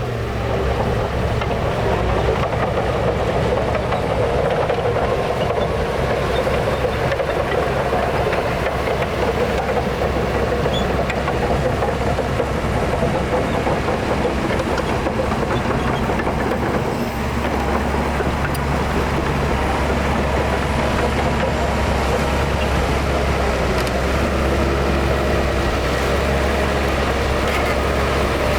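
Heavy diesel engines of earthmoving machinery running steadily under load, a continuous low rumble.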